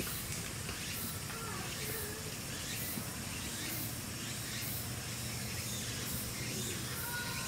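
Outdoor background: a steady hiss with faint distant voices and a faint high rasp repeating about once a second. Near the end, two steady tones begin.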